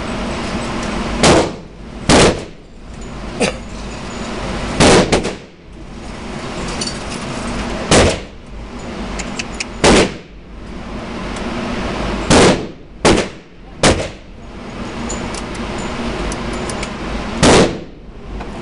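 Gunshots from other lanes of an indoor range, about ten sharp reports at irregular intervals, over the steady whir of the motorized target carrier bringing the paper target back to the stall.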